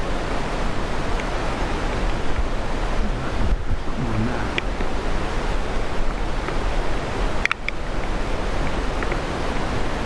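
Steady rushing wind noise on the microphone, heaviest in the low rumble, with a few faint clicks about halfway through and again later on.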